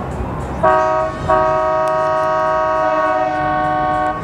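A horn blowing a short blast and then a long, steady one.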